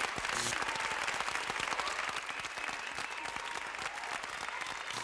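Audience applauding: many hands clapping in a dense patter that eases slightly toward the end.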